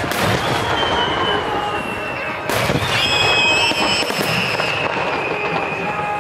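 Fireworks display: a steady crackle of bursting shells, with a loud burst about two and a half seconds in. A single falling whistle is heard early on. A second whistle made of several tones together starts about three seconds in and sinks slowly in pitch as whistling shells climb.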